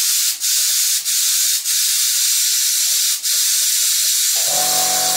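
Compressed air hissing steadily into a rubber glove, inflating it like a balloon, with a few brief dips in the airflow. Near the end a motor starts up with a steady hum under the hiss.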